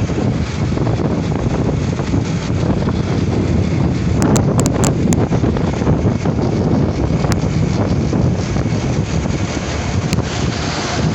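Wind rushing over the microphone of a moving motorcycle: a steady, loud low rush, with a few sharp clicks about four to five seconds in.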